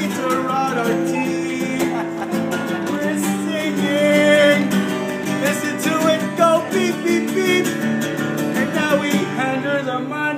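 Acoustic guitar strummed in chords with a man singing along.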